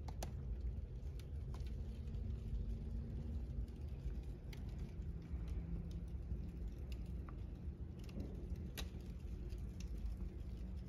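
Cardboard and paper burning in a fireplace: scattered sharp crackles and pops over a low steady rumble.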